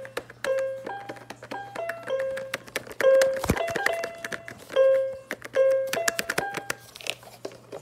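Fisher-Price baby activity toy playing a simple electronic melody of short stepped notes, over plastic clicks from handling and one knock about three and a half seconds in.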